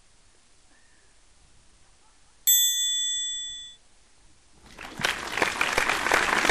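A single bright bell-like ding about two and a half seconds in, ringing for about a second before cutting off sharply. Near the end, a crowd applause sound effect swells up.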